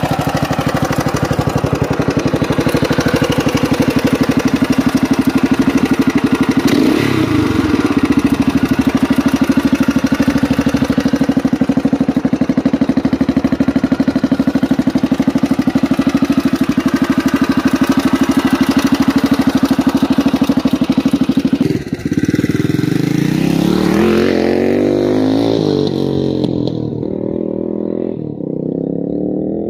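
1980 Honda XR500R's air-cooled single-cylinder four-stroke engine running steadily, with a brief blip of the throttle about 7 seconds in. About 22 seconds in the bike pulls away, revving up and down through the gears, and the sound fades into the distance.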